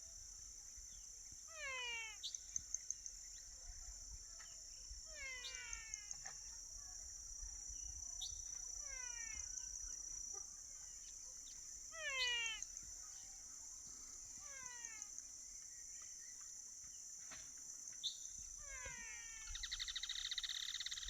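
Rural nature ambience: a steady high insect drone underlies repeated descending animal calls, one every two to four seconds. A rapid rattling burst comes in near the end.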